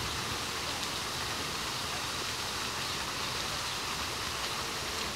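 Steady, even rushing noise like running water, with no clear separate events.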